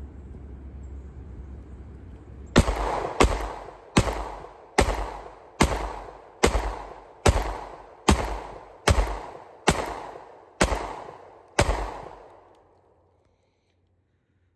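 Springfield Hellcat 9mm pistol firing twelve shots in steady slow succession, about one every 0.8 seconds, starting a couple of seconds in. It empties the full load of eleven in the magazine plus one in the chamber.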